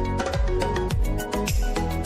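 Background music with a steady beat, bass drum hits about twice a second under plucked and melodic notes.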